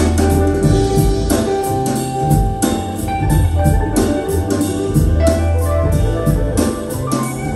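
Recorded band music with drums, bass and keyboards, played back through KEF LS50 Meta speakers with a subwoofer, on a steady beat.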